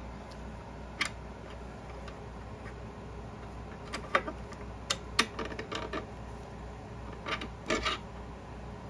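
Scattered light metal clicks and clinks as the counter lever is worked into the shift fork inside the tail housing of a 1993 Ford Ranger M5R1 5-speed manual transmission, most of them about halfway through and near the end, over a faint steady low hum.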